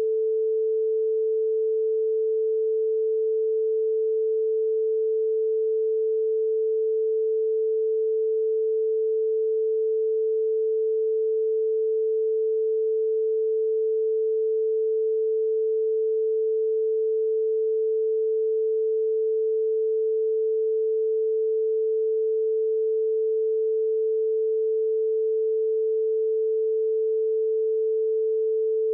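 A steady, unbroken mid-pitched pure tone: a censor tone laid over redacted audio in the recording.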